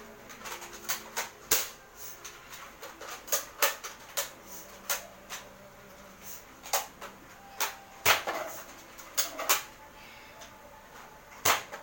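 Irregular sharp plastic clicks and knocks, well over a dozen, the loudest about one and a half, eight and eleven and a half seconds in: Nerf blasters being handled, primed and fired, with darts striking.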